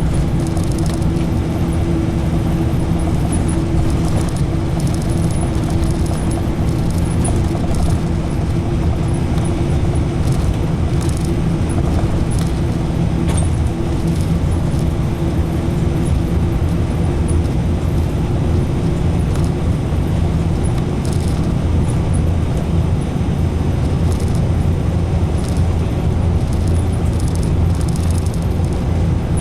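Route bus driving along the road, heard from inside the cabin: steady engine and road noise with a constant low hum.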